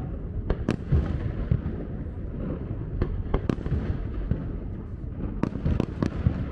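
Aerial fireworks display: a string of sharp cracks and bangs at uneven intervals over a continuous low rumble.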